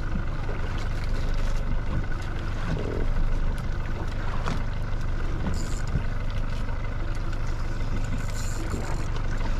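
A fishing boat's engine running steadily with a low hum, with scattered small knocks and clatter and brief hisses.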